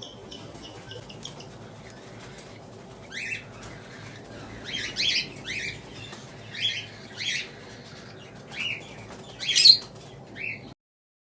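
Cockatiels calling: about eight short, sharp calls, each sweeping down in pitch, starting about three seconds in and loudest near the end. The sound cuts off suddenly just before the end.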